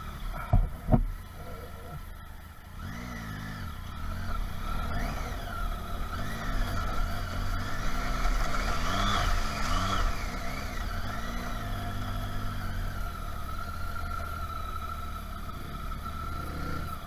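Triumph Tiger 800's three-cylinder engine revving up and easing off again and again over rough ground, with two sharp knocks in quick succession about a second in.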